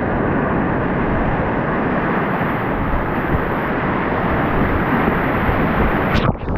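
Rushing whitewater of a river rapid, a loud steady rush of water. Near the end it briefly drops and turns muffled.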